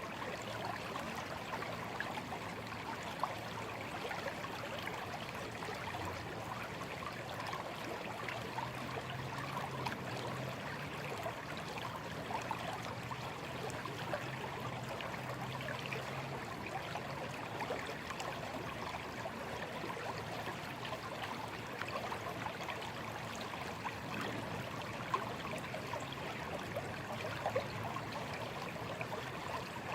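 A small, slow stream flowing with a steady, babbling trickle.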